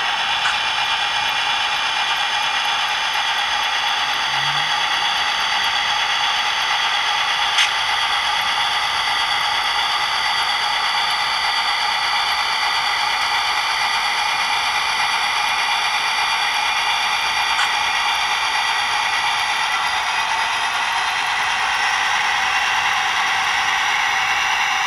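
Model diesel locomotive sound decoder (Soundtraxx Tsunami) playing a steady diesel engine sound through a small onboard speaker, thin with little bass, while the model runs on its track. Two sharp clicks break in, about seven and seventeen seconds in.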